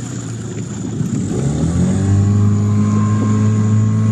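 Outboard motor of a small motorboat speeding up, its pitch rising over the first couple of seconds, then running steadily at higher speed.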